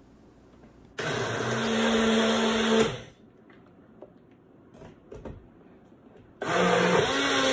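Chefman Personal Ultimate Kitchen Blender motor running in two pulses, each about two seconds, blending frozen fruit and liquid into a smoothie. The first starts about a second in; the second starts near the end. Between them there are a few faint knocks as the blending cup is handled.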